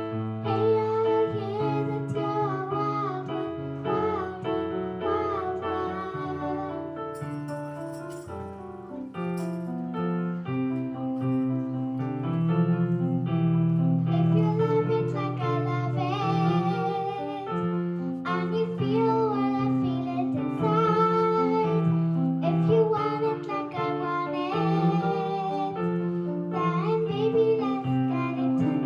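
Music: a singer holding notes with vibrato over piano accompaniment.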